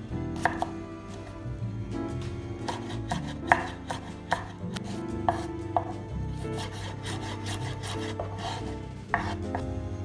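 Kitchen knife slicing a long green pepper on a wooden cutting board: irregular knife taps against the board, quickening into a run of fast chops a little past halfway through.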